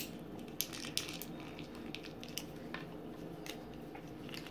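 Faint scattered clicks and taps of a small plastic toy egg and its pieces being handled on a wooden table, over low room hum.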